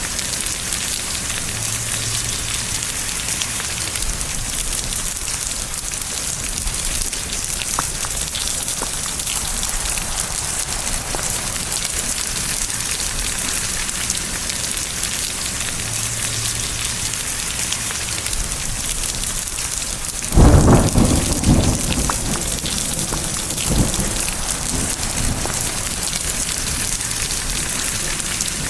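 Steady rain hiss, with a thunderclap about two-thirds of the way through: a sudden loud crack that rumbles off over a couple of seconds, followed by a smaller rumble shortly after.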